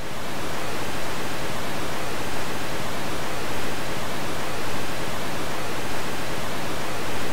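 Loud, steady television static hiss, even from low to high, with slight swells in loudness about every second.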